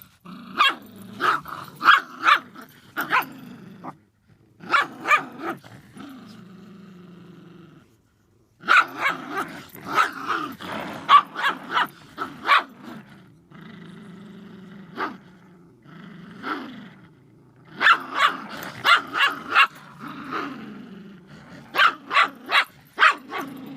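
A dog barking in quick bursts of several barks, with low, steady growling in the pauses between bursts.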